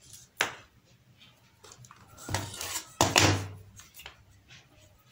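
An LED TV main board being handled on a workbench: a sharp click about half a second in, then two longer bursts of knocking and scraping about two and three seconds in as the board is set down and turned over.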